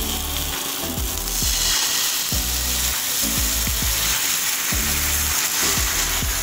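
Fish frying in a hot nonstick pan, the oil sizzling harder from about a second in as thick coconut milk is poured in around it. Background music with a steady bass beat plays underneath.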